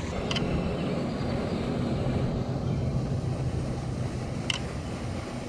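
Steady low outdoor rumble with a faint hum, broken by two faint clicks, one just after the start and one about four and a half seconds in.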